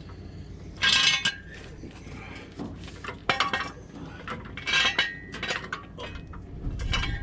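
Ringing metal-on-metal clanks, about four of them a second or two apart, from steel jacking gear (a jack and jack stands) being handled and set under the truck.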